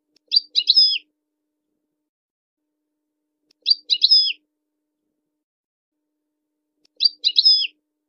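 European goldfinch calling: the same short phrase of a few quick high chirps, the last one sweeping down, three times about three seconds apart. The phrases are identical each time, like a looped recording.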